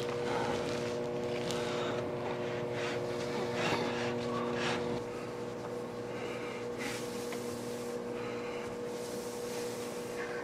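Frigidaire over-the-range microwave oven running while it heats two cups of water: a steady electrical hum with its fan noise. A few light clicks and rustles come in the first half, and part of the hum drops away about halfway through.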